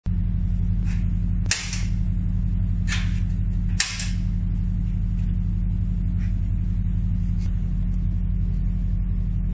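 Spark ignitor on a homemade two-burner LPG stove clicking as its gas burners are lit: a series of sharp clicks, two of them louder snaps, over a steady low hum.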